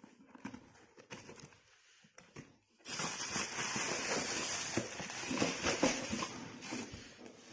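Packaging being handled as a hair dryer's box is opened: a few soft clicks and rustles, then loud, continuous crinkling of the plastic bag wrapping the dryer starting about three seconds in.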